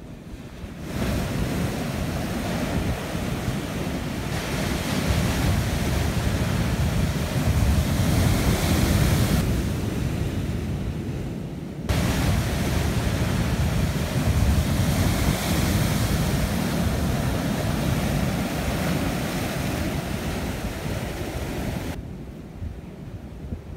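Ocean surf breaking on a rocky shore, a steady rushing wash, with wind buffeting the microphone and heavy in the low end. It jumps up about a second in, shifts suddenly about halfway through and falls quieter near the end.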